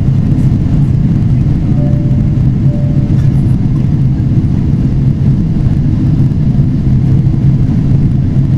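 Steady cabin noise of a Boeing 777-300ER in flight, heard from a window seat over the wing: a loud, even rumble of airflow and its GE90 turbofan engines, weighted to the low end.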